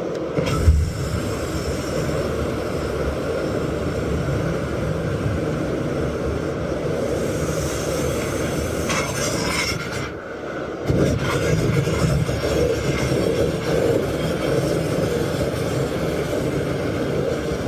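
Flamethrower firing in a long, steady rushing blast, with a sharp thump just under a second in. It cuts out briefly about ten seconds in, then fires again.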